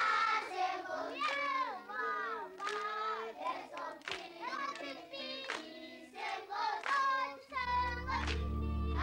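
A group of young children singing together, with hand claps. About seven and a half seconds in, a low sustained music bed enters beneath the singing.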